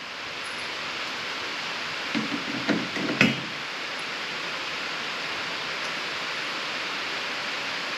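Steady background hiss, with a few light knocks about two seconds in and one sharp click just after three seconds.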